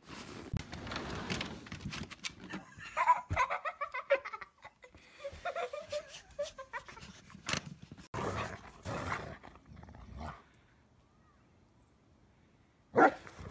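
Dogs playing in snow: scuffling through the snow, with short dog vocal sounds a few seconds in. There is a quiet stretch, then one short, loud sound near the end.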